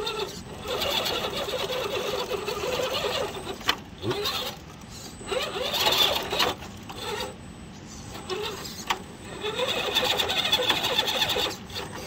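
RC rock crawler's electric motor and gear drivetrain whining in bursts as it is driven over rocks. The pitch rises and falls with the throttle: about three longer runs with pauses between them.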